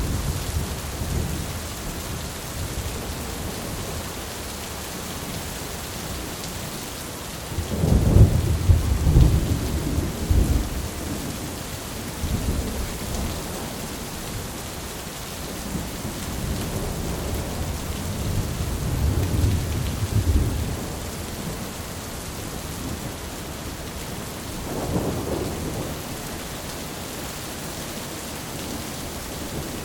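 Heavy rain pouring steadily, with thunder rolling in deep rumbles over it several times; the loudest roll comes about a quarter of the way in, and a smaller one near the end.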